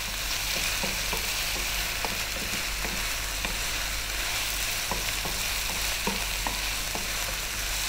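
Chicken strips, onion and broccoli stir-frying in oil over high heat: a steady sizzle, with scattered light taps and scrapes of a wooden spoon stirring in the pan.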